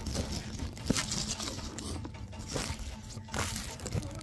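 Raw wild rhubarb (chukri) stalks being bitten and chewed close to the microphone: a run of irregular crisp crunches and tearing sounds, several of them loud.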